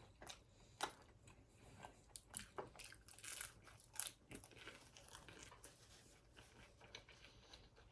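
Faint crunching and chewing of a fried egg roll: scattered crisp crunches of the wrapper, the clearest about a second in and again about four seconds in.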